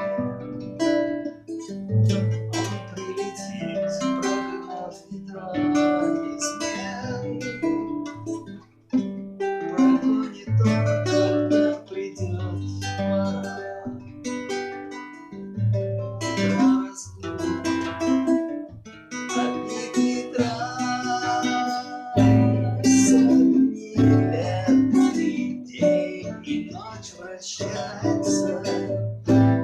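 Guitar music: plucked strings playing a melody over a bass line.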